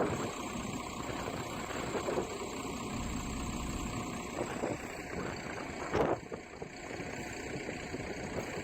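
Steady street noise with a vehicle engine running, and one short louder thump about six seconds in.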